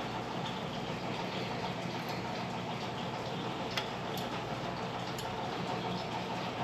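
A few light metal clicks from brake parts being handled as the pad retaining springs are pulled off, over a steady mechanical hum.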